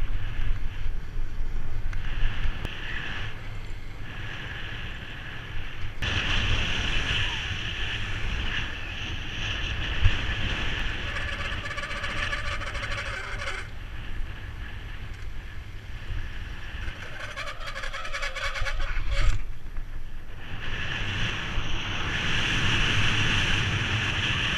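Wind rushing over the microphone of a BMX coasting fast down a paved road, with tyre noise on the asphalt. The rush swells and eases as the speed changes.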